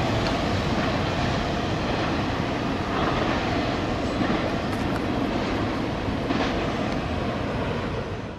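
Intermodal freight cars rolling on the rails as the tail of a CSX train passes, a steady rumble of wheel and rail noise that cuts off abruptly near the end.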